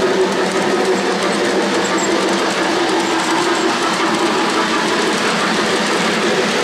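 O-gauge three-rail model freight train rolling steadily past, a continuous whirring rumble of metal wheels running on the track.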